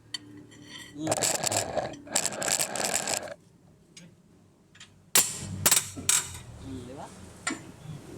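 Metal hand tools at work on a car's underside: two runs of rapid metallic clicking, then a few sharp metal clinks and knocks about five seconds in.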